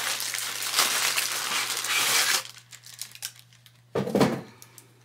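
White wrapping paper crinkling and rustling as a wrapped bottle is pulled out of a cardboard box, for about two and a half seconds. It then goes quiet apart from one short handling noise about four seconds in.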